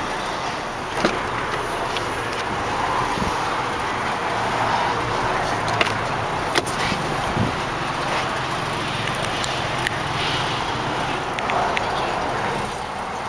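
Steady outdoor background noise with a few sharp clicks and light knocks from a hand working the rear-hinged back door of a Mazda RX-8.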